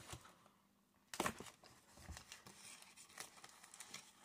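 Cardboard shipping box and its packing handled and torn open by hand, quietly, with a louder rustle about a second in and faint rustling after it.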